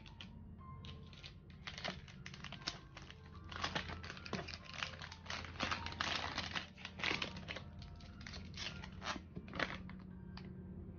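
Plastic packaging crinkling and rustling in dense, quick handfuls as hands open a plastic bag and pull a clear phone case out of it. The rustling is busiest around the middle.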